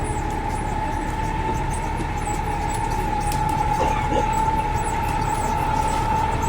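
Rail vehicle running on the track: a steady low rumble with a constant whine held over it.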